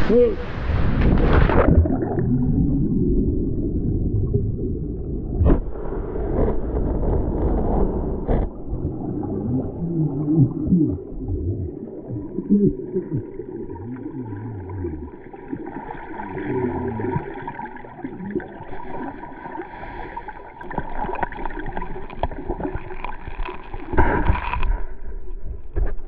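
Water heard from underwater in a river pool: muffled low rumbling and bubbling gurgles with a few sharp knocks. The rushing of the water surface cuts off about a second and a half in, as the microphone goes under. A faint steady tone comes in about halfway.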